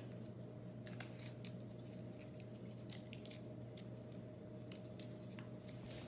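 Alka-Seltzer tablet fizzing in a jar of water under a layer of oil, heard as faint, irregular crackles and clicks of bubbles popping, over a steady low hum.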